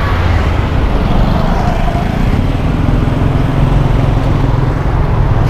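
Road traffic passing close by: a steady low rumble of vehicle engines and tyres.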